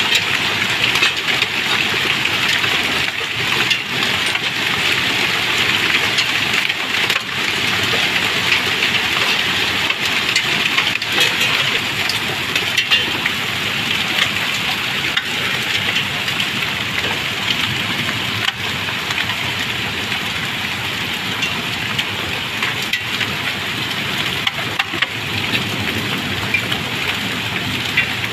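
Hailstorm: a dense, steady clatter of hailstones pelting the ground, peppered with many small sharp cracks like gunfire.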